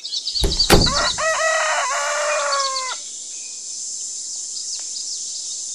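A rooster crowing once, a cock-a-doodle-doo lasting about two seconds, just after a low thud. A few high bird chirps come at the start, over a steady high hiss.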